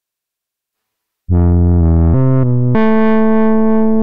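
A GForce Axxess software synthesizer playing its 'Sad Sax' lead preset, a saxophone imitation, after about a second of silence. It plays a few short notes stepping upward, then holds one long note.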